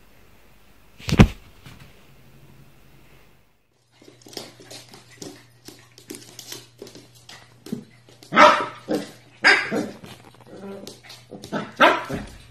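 A single sharp, loud sound about a second in, then a puppy barking in short barks, loudest three times in the second half. Claws click and scrabble on a wooden floor between the barks.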